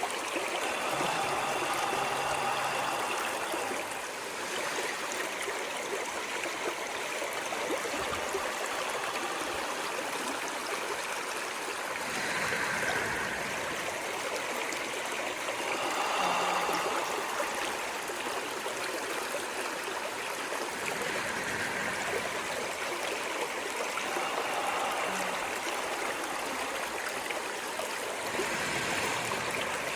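Stream of running water flowing steadily, now and then briefly louder with gurgles.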